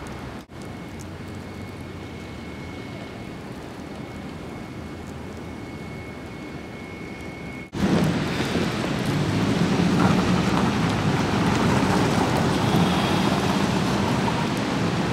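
Steady outdoor rushing noise in two spliced clips of a snowstorm: a quieter stretch with a faint steady high whine, then, after a cut about halfway, a much louder, deeper rushing.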